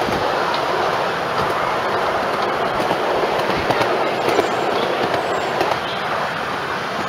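Ride aboard a miniature railway train: the wheels of the passenger cars run and rattle along the ground-level track, with a steady rumble and many small irregular clicks over the rail joints.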